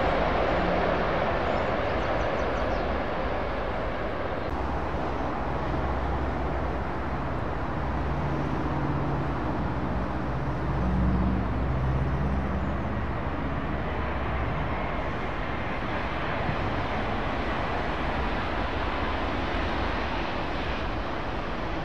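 Jet airliner engines: a steady low rumble with a slight swell about eleven seconds in, as a Boeing 777-200 comes in to land.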